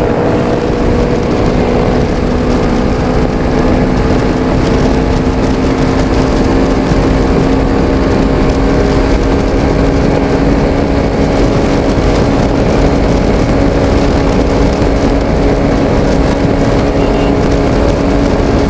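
Bajaj Pulsar RS200 motorcycle engine running at a steady cruising pace while being ridden, under heavy wind and road rumble on the rider's microphone.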